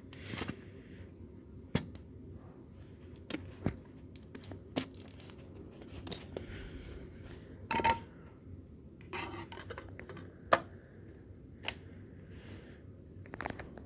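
Handling noise: scattered sharp clicks and knocks with short bursts of rustling over a low steady hum, the loudest knock about ten and a half seconds in.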